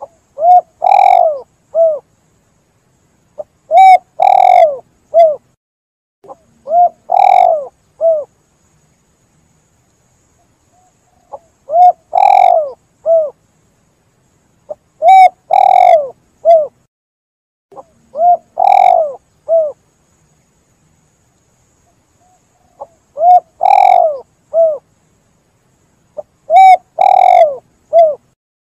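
Spotted dove (tekukur) cooing: repeated phrases of a few notes, each ending on a short falling note, one phrase every three seconds or so, with a longer pause twice.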